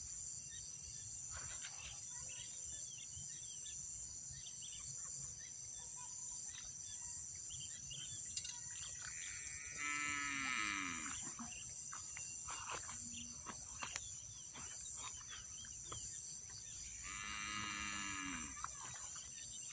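A cow lowing twice, each call about a second and a half long, the first about ten seconds in and the second near the end, over a steady high-pitched insect chorus.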